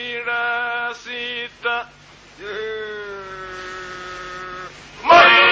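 Men singing a Himara polyphonic song on an old 1930s disc recording. A solo voice holds long notes, and just after five seconds in the group comes in loudly.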